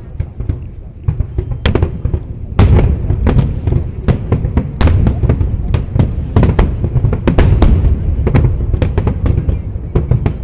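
Fireworks display: a rapid, irregular barrage of bangs and booms over a continuous low rumble, growing denser and louder about two and a half seconds in.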